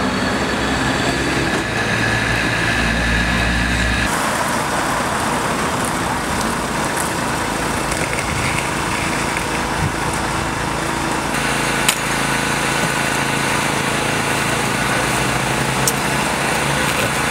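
A small engine running steadily, with outdoor background noise. The sound changes abruptly about four seconds in and again about eleven seconds in, and there is a single sharp click near the end.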